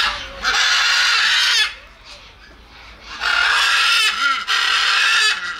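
Macaw parrot giving two long, harsh calls, the second one longer, about two seconds, with a short pause between them.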